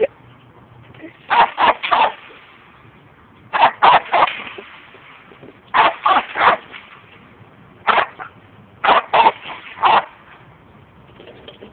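Dog barking in quick clusters of two to four barks, about five clusters with short pauses between.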